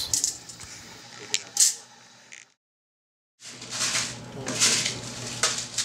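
A few sharp clinks and light clatter of pearls and containers being handled, broken partway through by about a second of dead silence. After the silence a low steady hum runs under the clatter.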